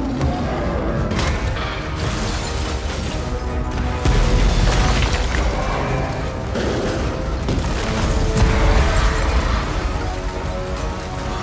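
Action-film score mixed with heavy booms and crashing sound effects, with a surge of deep rumbling about four seconds in.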